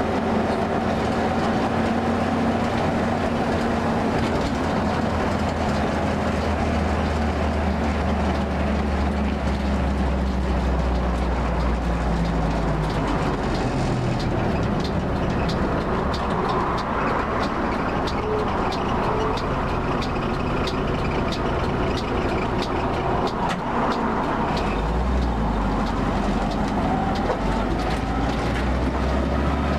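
A Jeep's engine running on the move, heard from on board, with road noise; the engine note shifts and drops several times as speed changes. A light rattling comes through in the second half.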